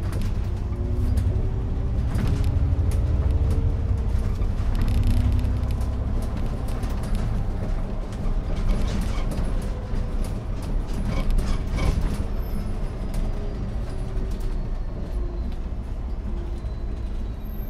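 Cabin of an Iveco Urbanway 12 compressed-natural-gas city bus under way. The engine and driveline give a steady low drone, with whines that rise in pitch as the bus speeds up. Scattered rattles and clicks come from the interior.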